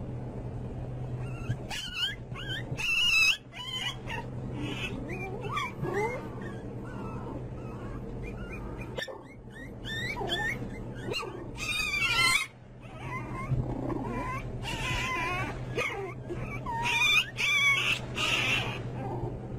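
A litter of puppies whining and yipping in short, high, wavering squeals, several overlapping at times, loudest in a few clusters.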